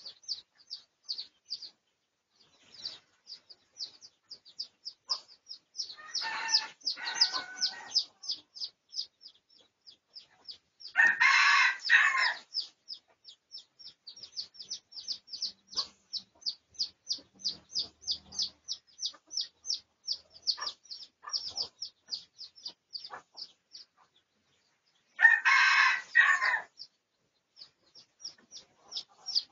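Red junglefowl rooster crowing three times, about six, eleven and twenty-five seconds in, each crow short and broken into two parts. Under it, a steady run of quick high chirps, about three a second, with brief gaps.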